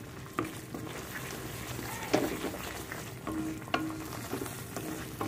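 A spatula stirring thick masala paste with yogurt round a kadai as it fries and sizzles, with a few sharp scrapes of the spatula against the pan.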